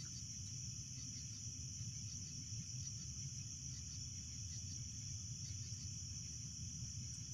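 Crickets chirring steadily in a high-pitched band, over a low steady rumble of background noise.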